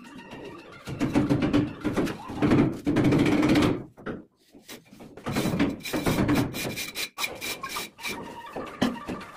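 Hand trowels scraping and rubbing sand-and-cement mortar against a concrete ceiling, in loud bursts that break off briefly about four seconds in, over background music.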